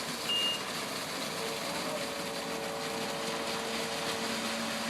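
Heavy equipment engine running steadily under a broad hum. A short high beep sounds shortly after the start.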